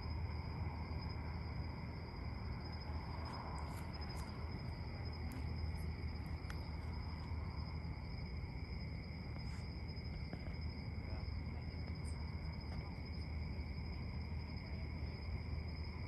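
Night chorus of crickets: a steady, unbroken high-pitched trilling at two pitches, over a low steady hum.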